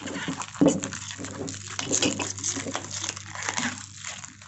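Clear plastic wrap crinkling and crackling as it is peeled and pulled off a stainless-steel motorcycle exhaust silencer, thinning out near the end.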